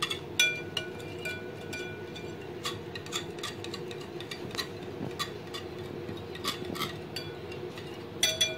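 Wire whisk stirring yogurt in a glass bowl, its wires clinking against the glass in irregular ticks, some ringing briefly, with a quick cluster of clinks near the end. A faint steady hum lies underneath.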